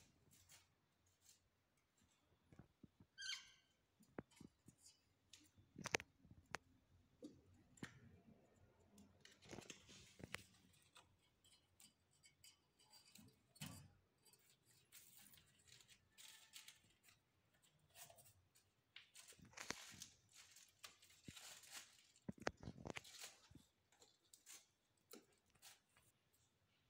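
Faint scattered rustling, scuffing and light knocks as kittens play on a floor among cardboard and plastic, with a brief high kitten mew about three seconds in.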